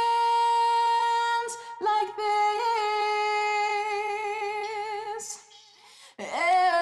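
Female pop singer holding two long high notes, the first steady and the second with a wide vibrato, over faint accompaniment; after a short breath-pause near the end the singing resumes.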